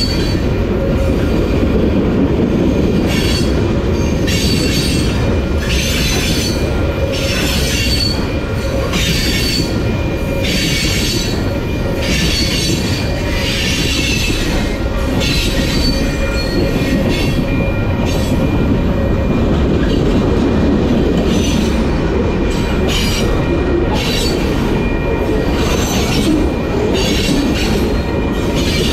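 Union Pacific freight train rolling past at close range: a steady heavy rumble of wheels on rail, with high wheel squeal and hiss that swell and fade about once a second as wheel sets pass.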